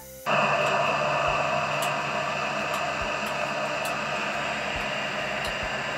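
Heat gun blowing a steady rush of hot air onto a graphics card's GPU to reflow its solder; the noise starts suddenly just after the start and holds steady, with a few faint ticks.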